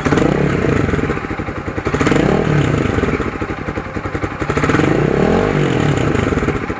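Motorcycle engine blipped three times from idle through an Akrapovic Hexatip muffler on a big elbow, fitted with two silencers (a dB killer at the inlet and one at the tip). Each rev climbs and falls back, giving a smooth, muted exhaust note.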